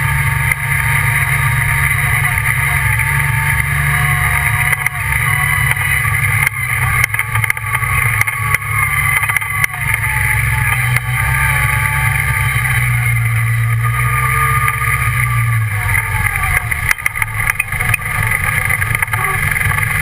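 Redline Revolt off-road buggy's engine running steadily while driving on dirt tracks, heard from a camera mounted on the buggy. Scattered short clicks and knocks sound through it, more of them in the middle and near the end.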